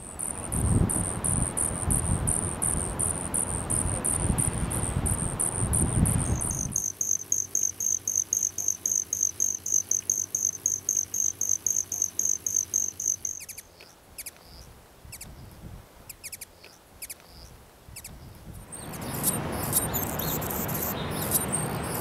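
Male hummingbirds' shuttle display sounds: a high, pulsed, insect-like trill repeating about four to five times a second over wind noise, then from about seven seconds in a male broad-tailed hummingbird's two-pitched pulsed wing trill that stops about thirteen seconds in. Near the end, wind noise returns with scratchy high clicks.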